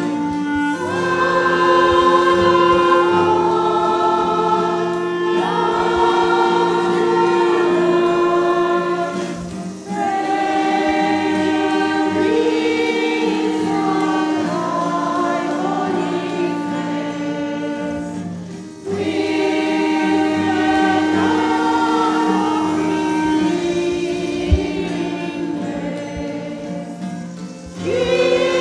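A church choir singing a Christmas hymn, accompanied by acoustic guitars and a clarinet. The singing comes in long phrases, with a short breath break about every nine or ten seconds.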